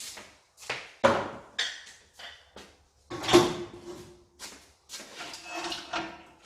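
Hand tools and metal car parts being handled: a string of separate knocks and clicks, with one loud metallic clang a little over three seconds in that rings briefly.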